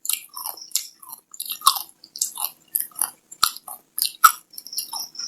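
Close-miked chewing of chocolate: crisp mouth clicks and short wet smacks, about one or two a second.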